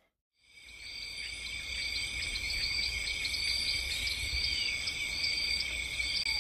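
Insects chirping in a steady, high-pitched chorus with many short repeated chirps, fading in about half a second in over a low rumble.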